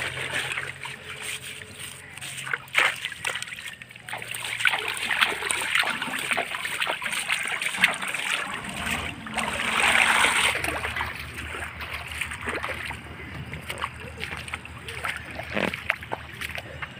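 Shallow stream water splashing and sloshing as a woven bamboo fish trap is handled and pulled out of it, with scattered clicks and rustles of straw and wicker. The splashing is loudest about ten seconds in.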